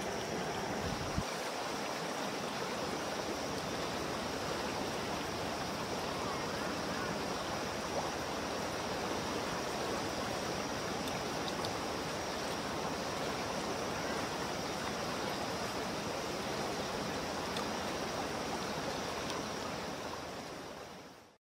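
Shallow rocky stream flowing steadily, fading out near the end.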